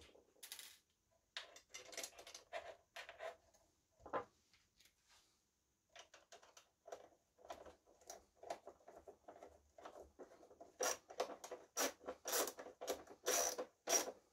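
A screw being tightened into the steam heater's mount inside a De'Longhi ESAM coffee machine: a run of short clicks and scrapes of tool and gloved hand on the plastic frame, with one knock about four seconds in, growing faster and louder over the last few seconds.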